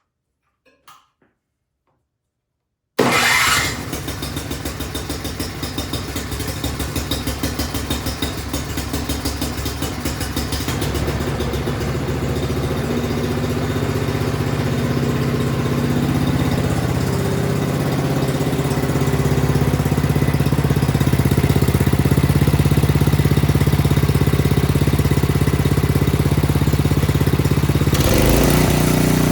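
Craftsman snowblower's small gasoline engine, running on a newly fitted carburetor. It comes in suddenly about three seconds in and runs with an uneven pulse at first, then steadies and gets louder from about twelve seconds in.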